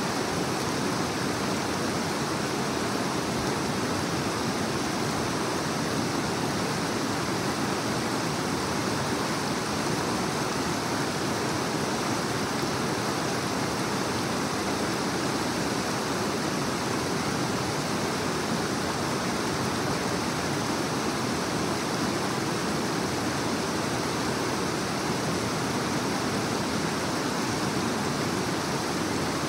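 Creek water rushing over rocks: a steady, even rush.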